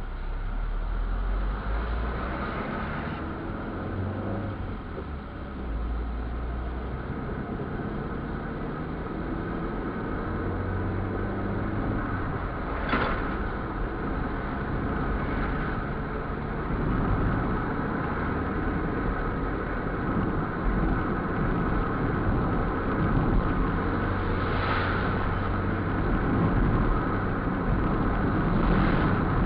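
Steady engine and road noise heard inside a moving vehicle as it climbs a hill in traffic. There are short sharp knocks about halfway through and twice near the end.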